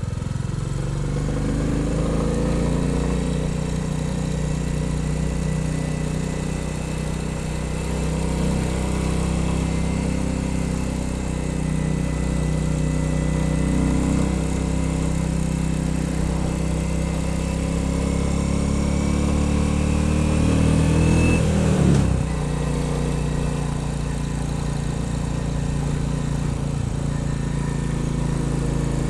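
Royal Enfield Bullet 350's single-cylinder engine running under way, its note climbing slowly for about twenty seconds. About three-quarters of the way through, the revs drop abruptly, then run steady at a lower pitch.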